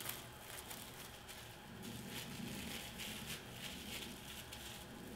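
Plastic cling wrap crinkling faintly as it is pressed and twisted by hand around a soft cheese ball, with small irregular crackles, busiest about two seconds in.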